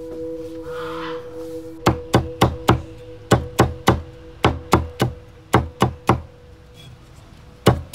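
A steel cleaver chopping red chilies on a thick wooden chopping block: sharp knocks in quick runs of about three a second, starting about two seconds in.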